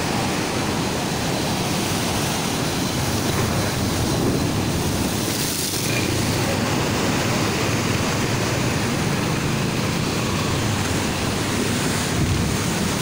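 Rough sea surf breaking and churning against a concrete seawall: a steady rush of water, with wind on the microphone.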